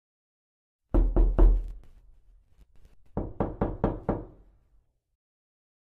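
Knocking on a door: three knocks about a second in, then after a pause of about two seconds a second run of about five quicker knocks.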